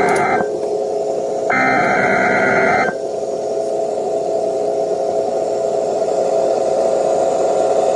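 Emergency Alert System SAME header data tones heard over a radio broadcast: the tail of one burst ends just after the start, and a second burst of about a second and a half runs from about 1.5 to 3 seconds in. A steady hiss of radio noise with a faint hum follows.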